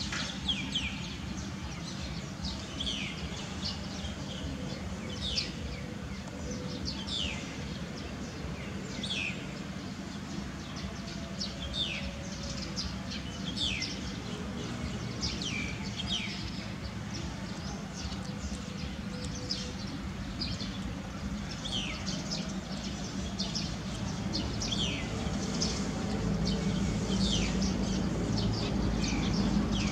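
Birds calling: a short, steeply falling high note repeated every second or two, over a steady low hum that grows louder near the end.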